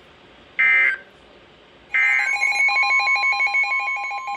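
Emergency Alert System data bursts: short buzzy digital screeches about 1.3 seconds apart, the end-of-message code closing the previous weather warning. About two seconds in, a loud alert tone sets in: a steady high tone with a rapidly pulsing beep over it, the warning alarm ahead of the next alert.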